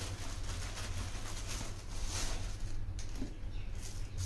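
Dry long-grain rice pouring and rattling from a plastic bag and a plastic bowl into a steel pan, in a few short rushes, with one sharp tick about three seconds in. A steady low hum runs underneath.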